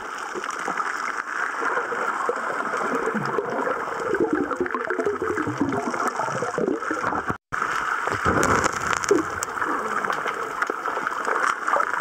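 Shallow sea water over a pebble bottom, heard underwater through a waterproof camera: a steady, muffled rush with gurgling and churning that grows more uneven from about four seconds in, and a brief dropout at about seven seconds.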